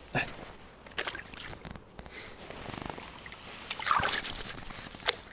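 Water splashing and trickling in a bucket as hands are rinsed in it, washing off fish slime, with a few knocks of handling; the splashing is loudest about four seconds in.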